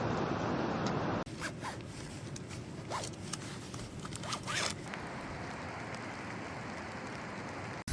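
A steady rushing noise of rain and wind cuts off about a second in. Then a zipper is pulled in several short runs, the longest and loudest near the middle.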